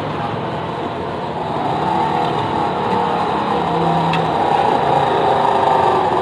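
Road traffic: a motor vehicle's engine running close by, getting louder over the second half.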